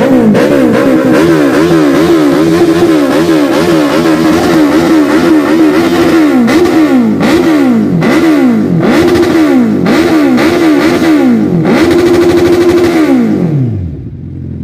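Suzuki Hayabusa's inline-four engine revved again and again with quick throttle blips, first about two a second and then about one a second. Near the end it is held high for a moment, then the revs fall away.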